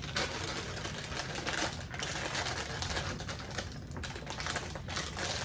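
Plastic popcorn bag crinkling and crackling continuously as it is handled and pulled at to tear it open.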